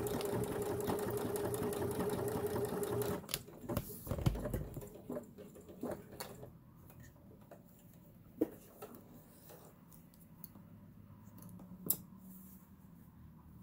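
Kenmore 385.19606 computerized sewing machine stitching a decorative letter pattern: a steady motor whine with rapid needle clatter, which stops suddenly about three seconds in. Scattered clicks and handling knocks follow as the fabric is taken out from under the presser foot.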